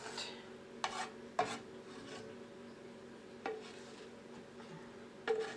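A slotted spatula scraping and knocking against a frying pan as diced chicken is stirred: about five short scrapes, a second or two apart, over a faint steady hum.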